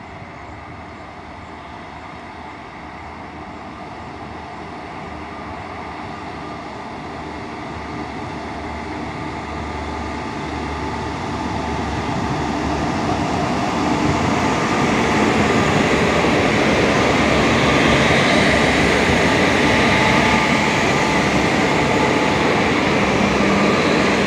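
Twin WAG-5HA electric locomotives hauling a loaded goods train, rolling closer and growing steadily louder over about fourteen seconds, then passing close with a steady rumble and hum. Near the end the loaded open wagons are rolling past.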